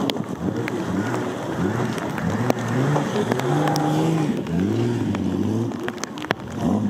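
Off-road racing vehicle engine revving hard in repeated surges, its pitch rising and falling with the throttle. Scattered sharp clicks run through it.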